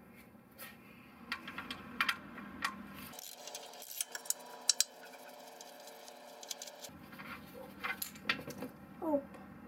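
Socket wrench working the oil pan drain bolt: a scatter of short metallic clicks and clinks in several bunches as the bolt is loosened.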